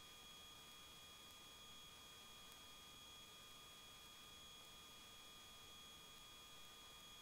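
Near silence on the headset intercom feed: only a faint steady hiss with a few thin, steady high tones.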